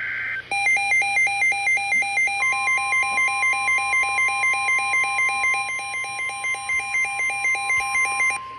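Electronic alarm beeping in a fast two-tone warble, about four beeps a second, over the steady NOAA Weather Radio 1050 Hz warning alert tone, which comes in about two seconds in. A short burst of digital data tones sounds at the very start.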